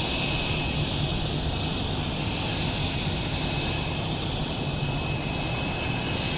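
Steady hiss of primer being sprayed onto a plastic bumper, with a thin steady whistle running through it and a low rumble beneath.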